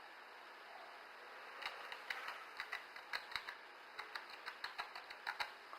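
Typing on a computer keyboard, entering a password: an irregular run of light key clicks that starts about a second and a half in.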